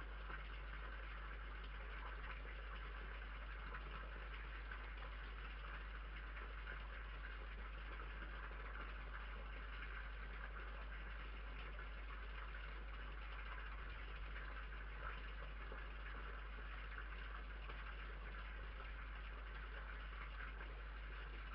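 Steady electronic hiss with a constant low hum from a security camera's built-in microphone, with no distinct sounds over it.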